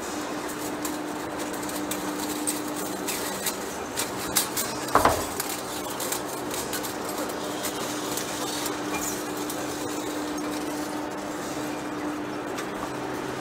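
Large industrial lathe running with a steady low hum while it turns a big steel workpiece. Scattered metallic clicks and clinks come through the hum, with a burst of loud clattering knocks about five seconds in.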